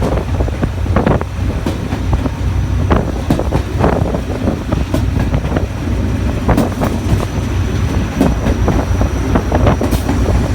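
Train rolling into a station: a steady low rumble of the wheels and carriages, with many irregular clicks and clanks.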